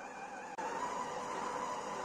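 A small electric motor running with a steady hum, stepping up louder about half a second in.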